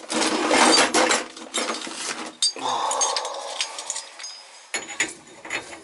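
Metal hand tools clinking and clattering against each other, with many sharp metallic clicks and a faint ringing.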